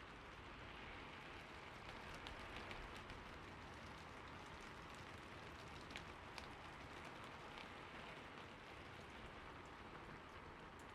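Faint, steady hiss of falling water, with scattered small drips and splashes, a few of them standing out about six seconds in.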